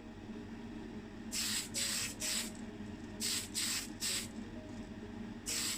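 An aerosol can of Tamiya Fine Surface Primer sprays in short hissing bursts while priming the inside and wheel wells of a diecast car body. There are three quick bursts, then three more, then one near the end.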